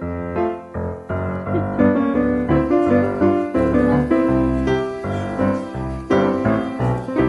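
Piano music, a run of notes over a bass line.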